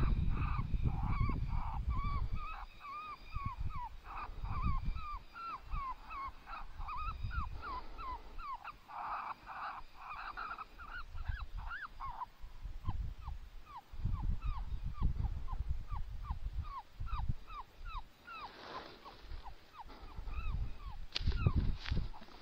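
A long string of short, high yelps or squeals, about two a second, pausing briefly twice, over a low rumble that comes and goes.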